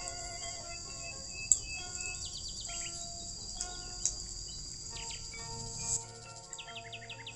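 A steady high-pitched insect drone, like cicadas or crickets, with short falling bird chirps over it and a few sharp clicks.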